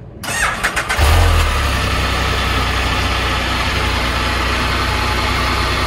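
Can-Am Spyder RT Sea to Sky's Rotax 1330 ACE inline three-cylinder engine being started: the starter cranks briefly, the engine catches about a second in with a short low rise in level, then settles into a steady idle.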